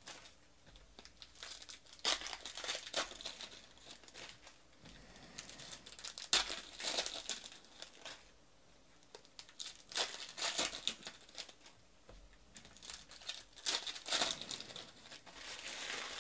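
Foil trading card pack wrappers being torn open and crinkled by hand, in several spells of a couple of seconds each with short quiet gaps between.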